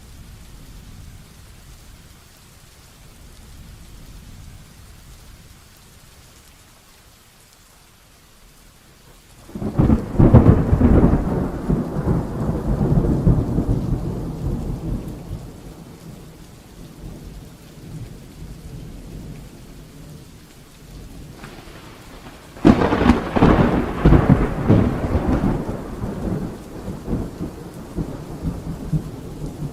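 Heavy rain falling steadily, with two loud rolls of thunder: one breaking about a third of the way in and rumbling away over several seconds, and a second crashing in about three quarters of the way through.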